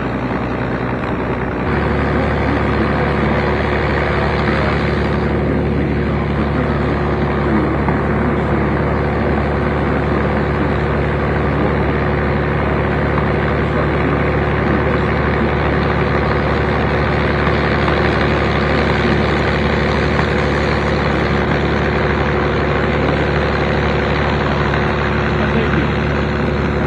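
An engine running steadily at a constant speed, an even hum that holds its pitch throughout, stepping up in loudness about two seconds in.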